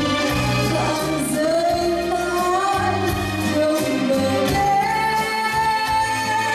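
A woman singing a Vietnamese song live into a microphone, with electronic keyboard accompaniment and a bass line underneath.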